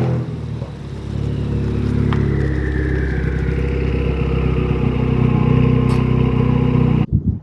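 Car engine running at fairly steady revs while driving, cutting off abruptly near the end.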